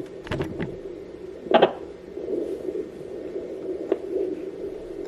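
Neeva Baby fetal doppler's speaker giving a steady static whoosh as the probe searches over the gelled belly for the baby's heartbeat, with a few short knocks from the probe, the loudest about a second and a half in.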